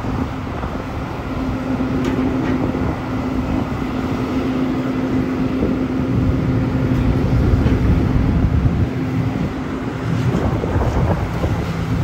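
Engine of tree-work heavy equipment running steadily with a constant hum and low rumble, with wind buffeting the microphone.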